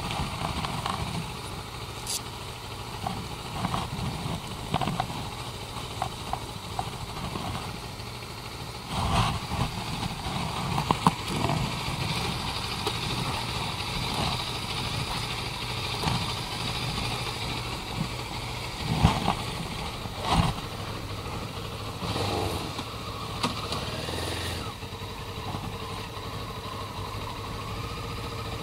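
Motorcycle engine running at low speed, with scattered clicks and knocks over it and a change in its note near the end.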